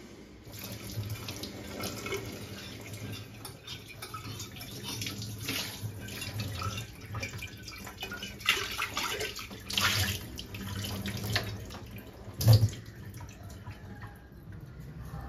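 Tap water running into a stainless steel sink as glass jars are rinsed and swirled by hand, with small clinks of glass. A single louder knock near the end.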